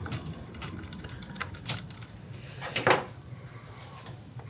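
A screwdriver and small metal parts clicking and scraping as a screw is driven in by hand. The clicks are light and irregular, with one louder scrape about three seconds in.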